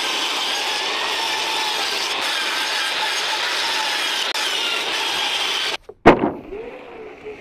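Jobsite table saw ripping a sheet of 7/16-inch OSB, its blade running steadily through the board before the sound stops abruptly. Then comes a single loud knock.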